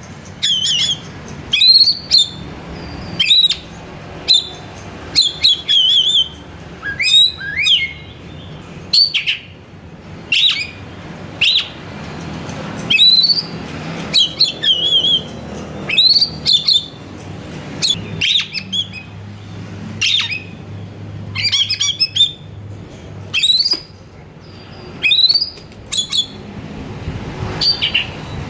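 Oriental magpie-robin (kacer) in full song: a steady run of loud, short whistled phrases with quick rising and falling sweeps, about one or two a second.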